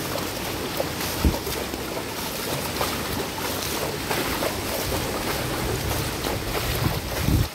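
Rain falling and floodwater running in a flooded street, a steady hiss, with two brief low buffets of wind on the microphone: one about a second in and one near the end.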